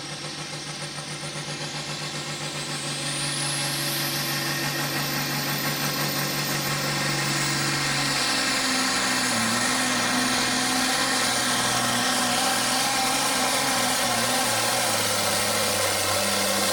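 Turbocharged diesel engine of an International Harvester 1466 pulling tractor revving up hard, its turbo whistle rising as it spools over the first few seconds. It then runs loud and steady under full load hauling the weight-transfer sled, its note changing about eight seconds in as the pull gets under way.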